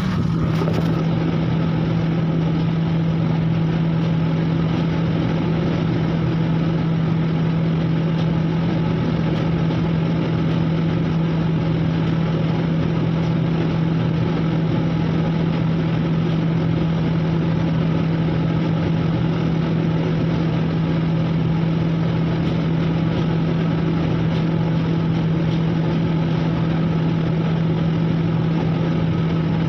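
Steady machinery drone heard inside a merchant ship: the ship's engines and machinery running without change, with a strong low hum over a constant hiss.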